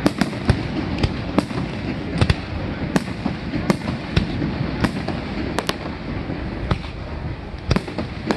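Aerial fireworks display: shells bursting in sharp bangs at irregular intervals, about one or two a second, over a continuous low rumble.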